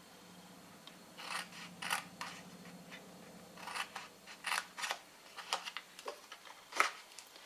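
Small craft scissors snipping blue cardstock in a series of short, crisp cuts, notching the sheet along its score lines.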